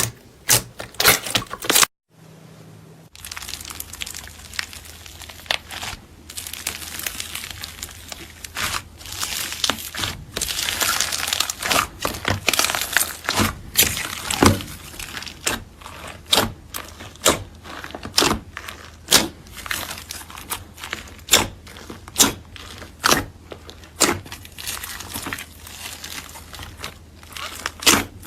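Slime being squeezed and pressed by hand, giving a string of sharp pops and clicks over a crackly, crinkling sound. There is a brief break about two seconds in, and after it a steady low hum runs underneath.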